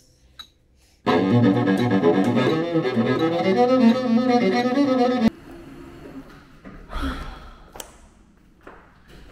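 Cello bowed loudly in a run of low notes for about four seconds, starting about a second in and cutting off abruptly. Afterwards only faint sounds remain, with one short thump about two seconds later.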